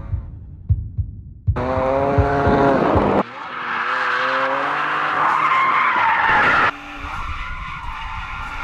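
Drift cars' engines revving and tyres squealing, in several short cuts. First an engine note falls as the revs drop, then a long tyre squeal runs over the engine, then rougher engine noise follows.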